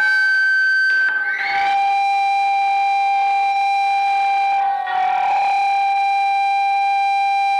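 Loud, steady electronic tone through the hall's sound system, held without wavering. About a second in it drops from a higher pitch to a lower one, and it breaks briefly just before five seconds before going on.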